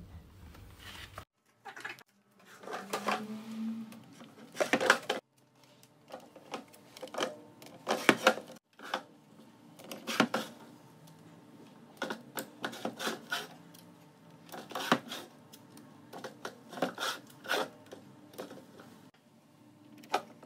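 Hard plastic airtight food containers being handled on a pantry shelf: scattered taps, clicks and light rustles as the containers are moved and labels are pressed onto them.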